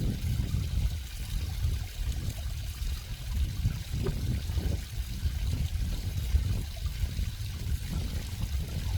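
Running water of a stream, a continuous trickling and rushing flow with a deep, uneven low rumble beneath it.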